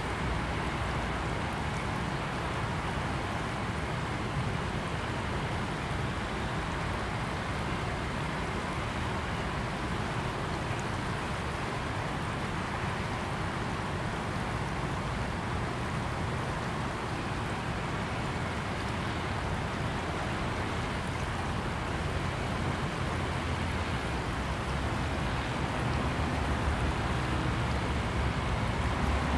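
Steady rush of a small, fast-flowing river, with a low rumble beneath it.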